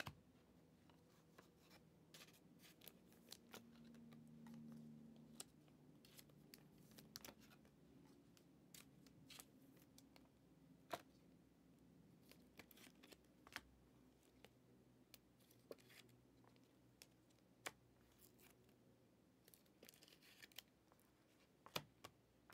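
Near silence with faint, scattered clicks and light rustling of trading cards being handled and set down.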